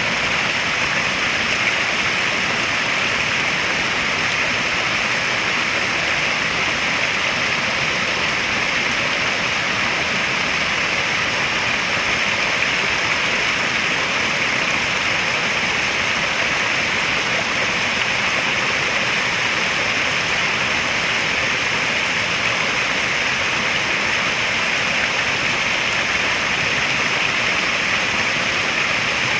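Steady rush of running water in a koi pond, an even hiss that does not change.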